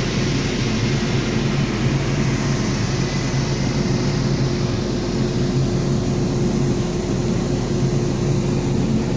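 Steady drone aboard a ship: a constant machinery hum, as from the vessel's engine, under an even rush of wind noise.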